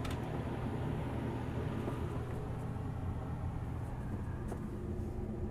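A steady low hum of machinery with a few faint clicks.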